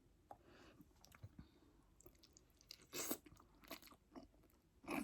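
A person chewing food close to the microphone, mostly quiet, with a few short louder mouth noises about three seconds in and again at the end.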